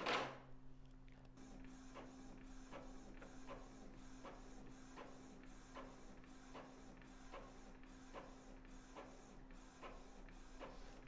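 Epson L3150 ink-tank inkjet printer making a colour copy: a faint steady hum with the print head carriage ticking evenly, about two to three times a second, as the page feeds out. It prints cleanly, the sign that its first ink initialisation went well.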